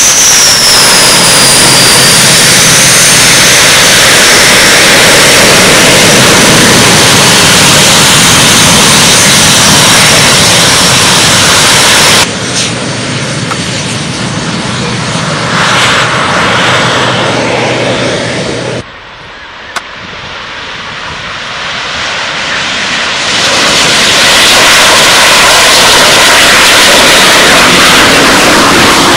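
Canadair CT-114 Tutor jets' turbojet engines running loud, with a high whine that slides in pitch as the jets taxi. The sound drops abruptly twice, then swells back to full loudness as jets come over.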